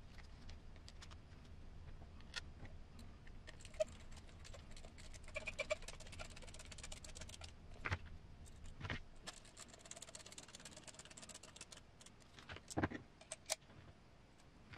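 Faint handling of plastic RC-crawler kit parts, a roof rack and traction boards, being fitted together: light clicks and taps, two stretches of quick fine rattling, and a few sharper knocks as the parts are set down, about eight seconds in and again near the end.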